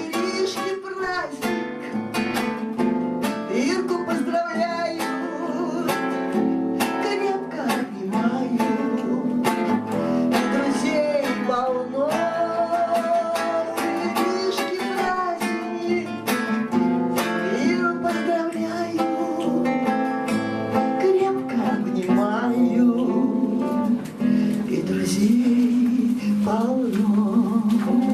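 Music: an acoustic guitar strummed and plucked, playing a song accompaniment.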